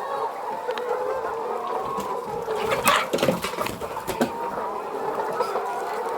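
A flock of young laying hens (pullets) clucking steadily together. About three seconds in there is a louder burst of knocks and rustling, and one more knock just after.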